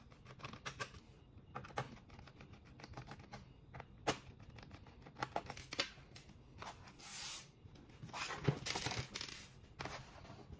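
Small screwdriver backing out the bottom-cover screws of an ASUS X502 laptop: a run of light clicks and ticks, with a few sharper knocks as screws and the plastic case meet the wooden table. In the second half come short scraping sounds as the laptop is moved across the table.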